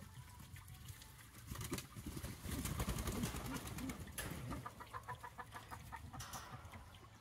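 Flock of Novogen laying hens making soft, low calls. There is a quick run of short clicks around five seconds in.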